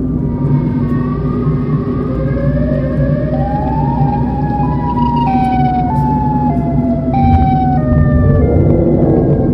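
Car engine and road hum heard from inside the cabin, with a siren-like wail over it: tones that glide upward through the first few seconds, then jump up and down in pitch in steps, fading near the end.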